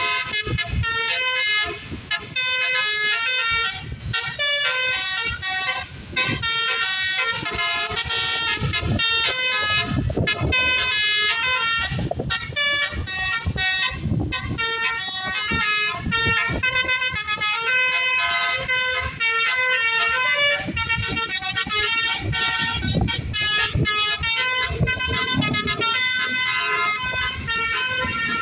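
Basuri telolet bus horn playing a fast melody: a run of loud, stepped multi-tone horn notes that goes on without a break.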